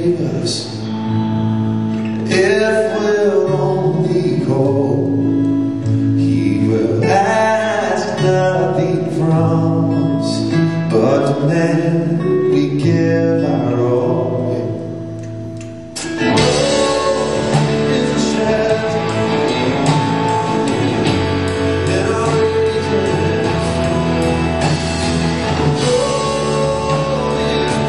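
Live band music: a man singing over acoustic guitar and bass. About sixteen seconds in it cuts abruptly to a fuller, guitar-led passage with electric guitar.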